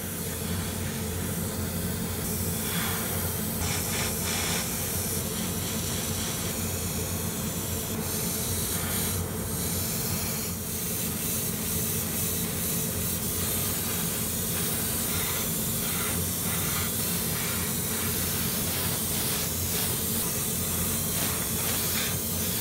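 Mr. Hobby PS-290 airbrush spraying urethane clear coat: a steady hiss of air and paint, rising and falling a little as the trigger is worked, over a steady low hum.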